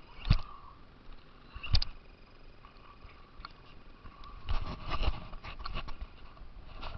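Radio-controlled car driving over rough ground, its body and suspension knocking and jolting over bumps: two sharp knocks early, then a run of rattling knocks in the second half, with a faint steady motor whine between.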